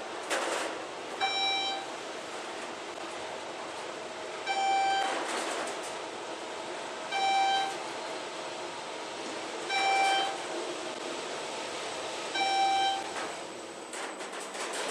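Electronic beep from the elevator, sounding five times about every two and a half seconds, each beep about half a second long, over a steady background hiss.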